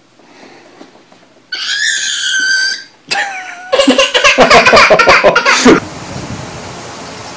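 Two high-pitched squealing calls, then about two seconds of loud, pulsing, hard laughter. Near the end it gives way to a steady rushing noise.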